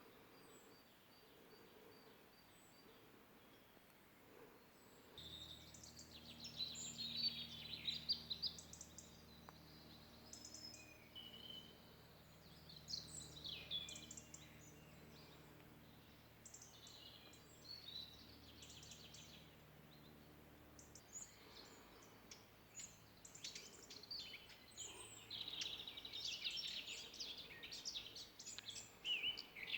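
Several songbirds chirping and trilling. A faint low steady hum comes in about five seconds in and stops about twenty seconds in.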